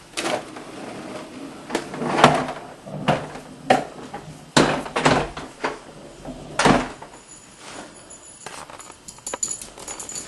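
Irregular knocks and thumps of a vacuum cleaner being handled and set down, with no motor running; the loudest come a couple of seconds in and again around the middle.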